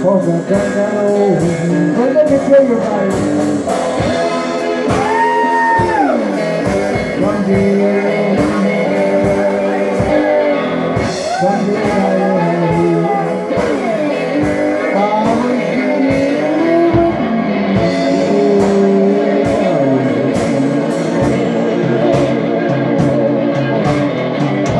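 Live blues band playing: electric guitar and a drum kit keeping a steady beat, under a lead line of long held notes that bend up and down in pitch.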